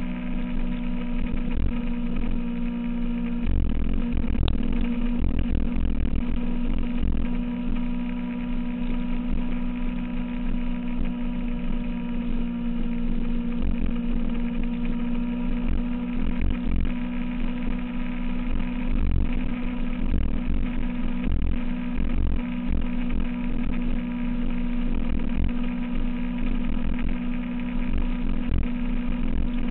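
2006 Kawasaki ZX-6R inline-four engine running at a steady pitch while cruising, with wind buffeting the camera's microphone in uneven low gusts.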